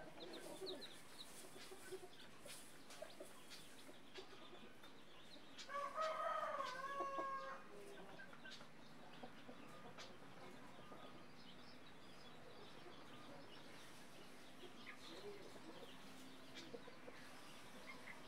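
Hen with newly hatched chicks: faint scattered clucks and thin chick peeps. About six seconds in comes one louder, drawn-out chicken call, nearly two seconds long and dipping slightly in pitch.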